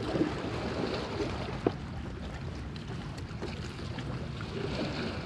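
Steady seaside background noise, with one sharp click about a second and a half in.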